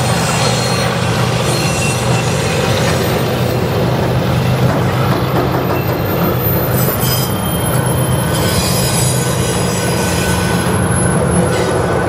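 Freight cars of a mixed freight train rolling past at speed: a loud steady rumble and clatter of steel wheels on the rails, with faint high squealing tones now and then.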